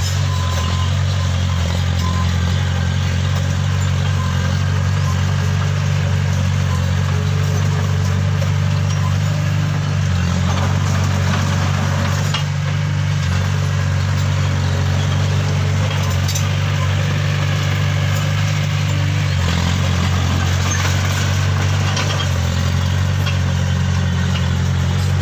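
Steady low mechanical hum at an even, loud level, with a few faint clicks over it.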